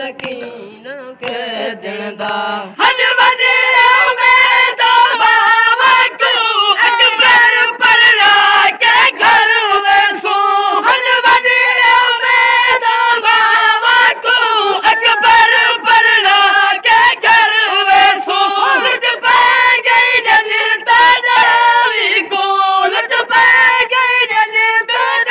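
A group of voices chanting a Shia noha lament in chorus, over a steady run of sharp beats. It starts softer and thinner, and the full chorus comes in loud about three seconds in.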